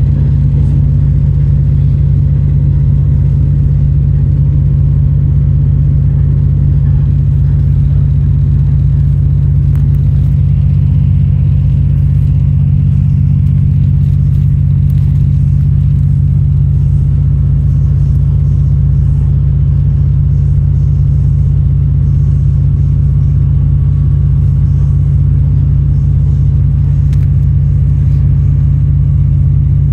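An Endeavour diesel railcar running steadily along the track, heard from inside the carriage as a loud, steady low drone with a constant deep hum from its diesel engine.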